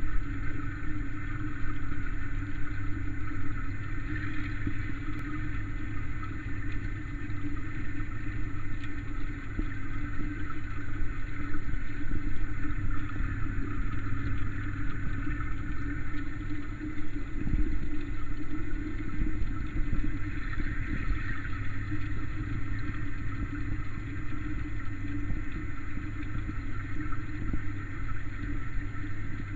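Steady low hum and water rush picked up underwater in a large fish tank, the drone of the tank's water circulation, with a faint constant high tone above it.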